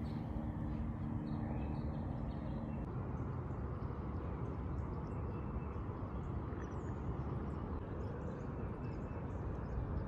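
Lakeside outdoor ambience: a steady low rush with scattered faint bird chirps. A low steady hum sounds for the first three seconds or so, then stops.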